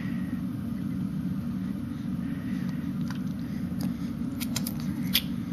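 Steady low background rumble, with a few small wet clicks about four to five seconds in as a baby sucks and mouths its fist.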